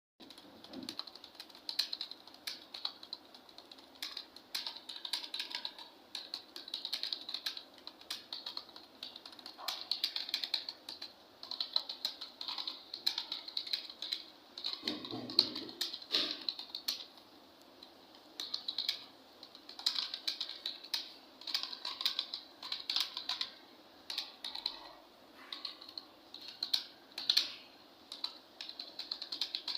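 Keys being typed fast: quick runs of crisp clicks broken by short pauses, as in a typing-speed test.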